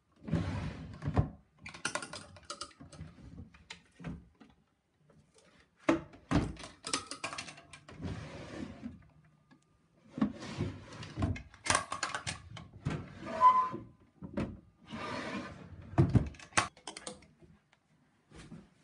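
Wooden dresser drawers being pulled open and pushed shut, with irregular knocks and thuds of wood on wood and rustling as hands rummage through the drawers' contents.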